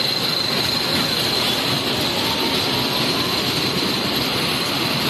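Dragon train kiddie coaster running along its steel rail track: a steady rolling rumble with a thin, high, steady whine over it.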